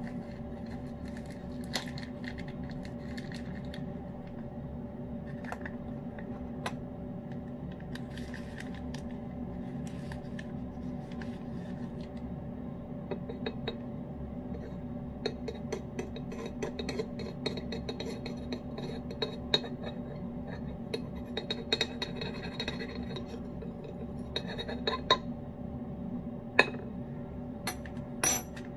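A metal spoon scraping and clinking against a ceramic cat-food bowl as wet food is spooned in, then set down with a couple of sharp clicks on a stone countertop near the end. A steady low hum runs underneath.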